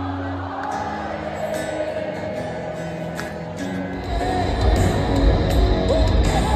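Live rock band playing in a stadium, heard from far up in the stands. Held notes at first, then about four seconds in a heavy low beat kicks in and the music gets louder.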